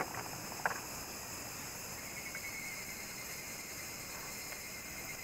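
Steady high-pitched drone of insects, with two brief faint water splashes near the start as a small bass is let go by hand into the water.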